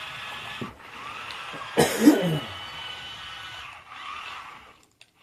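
Small electric motor of a toy remote-control car whining as it drives across a carpet, with a short vocal sound about two seconds in.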